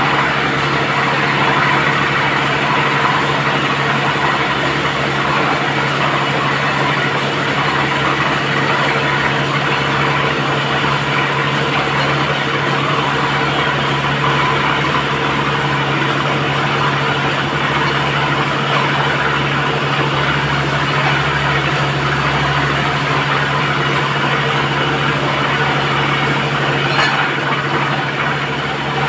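Tractor-mounted borewell drilling rig running steadily, its engine holding a constant hum, with water gushing and splashing out of the bore around the drill head.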